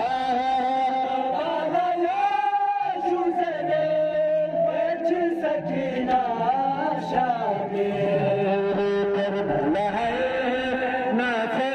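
Male voices chanting a noha, a Shia mourning lament, in long held notes that slide between pitches.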